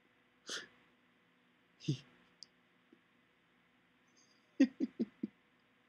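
Sleeping Siberian husky's mouth making wet tongue smacks and clicks as it laps at the air in its sleep, as if drinking: a couple of single smacks, then four quick ones in a row near the end.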